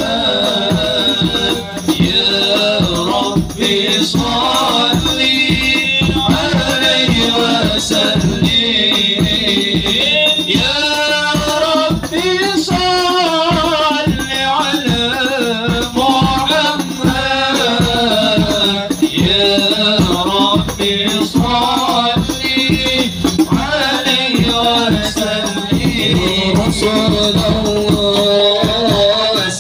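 Devotional Islamic group music: voices singing a religious song over fast, steady hand percussion with jingling rattles.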